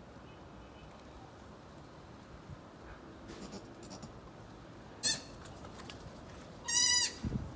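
Goats bleating: a brief call about five seconds in, then a louder, quavering bleat near the end.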